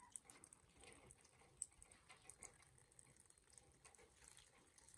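Near silence with faint, scattered light clicks and ticks, one slightly louder about a second and a half in.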